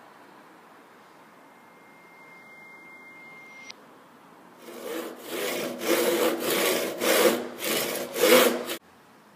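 Handsaw cutting through a wooden batten: about seven quick back-and-forth strokes of the blade, starting about halfway in and cutting off suddenly near the end.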